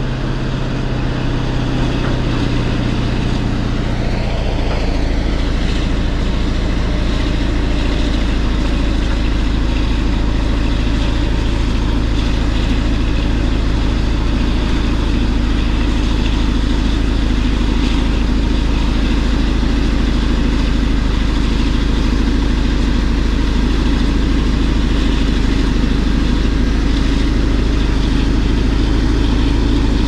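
Caterpillar D11 bulldozer's diesel engine working steadily under load as it pushes a blade full of damp, hard-to-push dirt up out of the hole, growing louder over the first few seconds as the machine comes closer.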